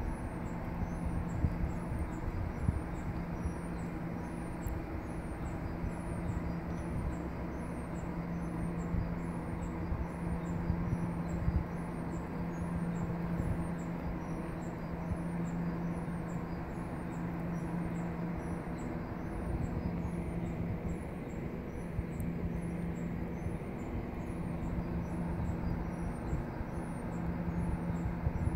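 Very Large Array radio telescope antenna's drive machinery humming steadily as the dish slowly slews to lock onto its next target, a low even drone with a few higher steady tones above it.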